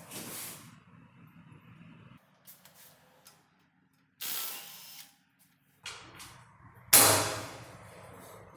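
Three short bursts of hissing, the loudest near the end and fading away, over a faint low hum.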